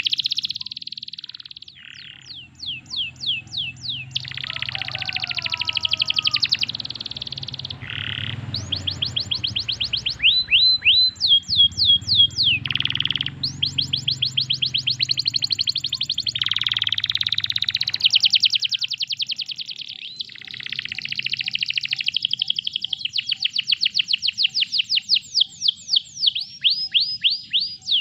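Domestic canary singing a long, continuous song of rapid trills: runs of the same sweeping note repeated many times a second, switching to a new run every second or two.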